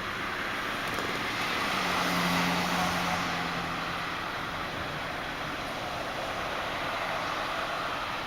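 A road vehicle going by: a rush of tyre and engine noise that swells to its loudest about two seconds in, with a low engine hum for a couple of seconds, then stays steady until it cuts off near the end.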